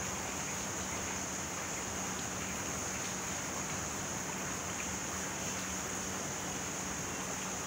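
Steady rain: an even hiss with a faint low hum beneath it.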